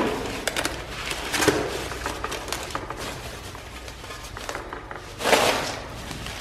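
Rustling and crackling of packaging as parts are unwrapped: white foam wrapping pulled out of a cardboard box, with small knocks and clicks and a louder rustle about five seconds in.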